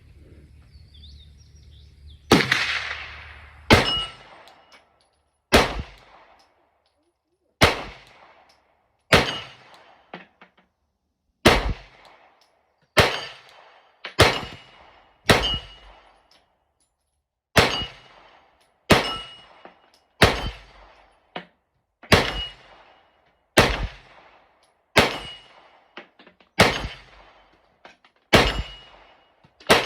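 A Glock 45 9mm pistol firing a string of about eighteen shots at a slow, steady pace, one every second or two. Each shot is followed by a brief metallic ring.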